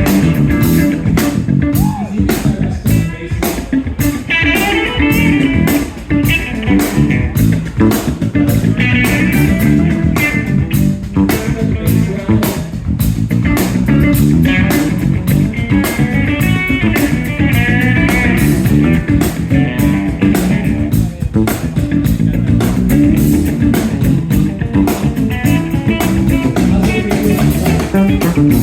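Instrumental funk band playing live: electric guitars over electric bass and a drum kit keeping a tight, steady beat.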